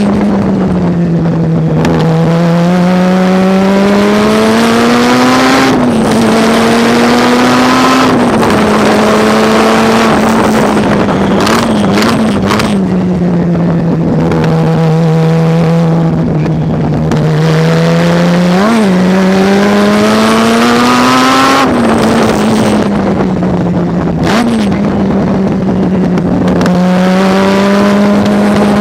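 Mazda rotary race engine heard on board, working hard through the laps. Its note climbs steadily under acceleration and falls back at each gear change and under braking. A few quick sharp throttle blips mark the downshifts.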